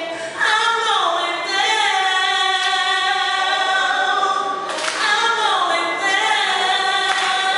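A woman singing a cappella into a microphone, holding long notes and sliding between pitches.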